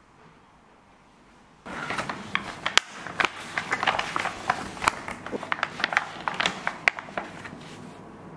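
Brown baking paper crinkling and rustling with many sharp crackles as the quiche is lifted out of its fluted tart pan, starting suddenly about two seconds in and tailing off near the end.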